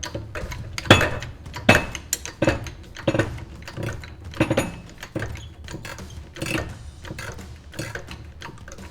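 Hand ratchet turning out a bolt that was seized in a leaf-spring bushing, clicking in short strokes roughly once a second.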